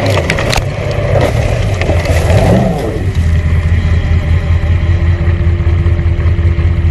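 Trophy truck engine running hard, heard from inside the cab. A few sharp knocks and rattles come in the first half-second, the engine pitch briefly rises and falls about two and a half seconds in, and then it settles into a steady drone.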